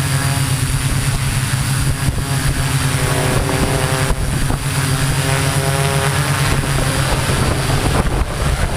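Homemade multirotor drone's electric motors and propellers buzzing steadily in flight.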